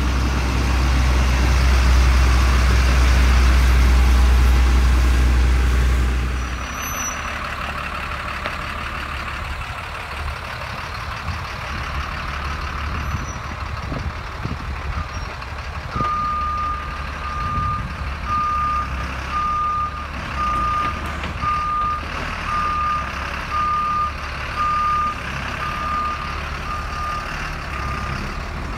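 1992 GMC TopKick bucket truck's engine running with a loud low rumble for the first six seconds, then running more quietly. From about halfway on, its backup alarm beeps about once a second.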